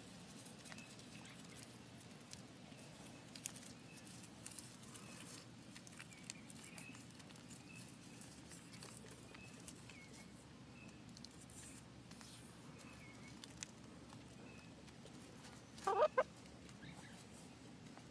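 Backyard chickens making faint, soft calls with light ticks scattered throughout, and one louder short clucking call about sixteen seconds in.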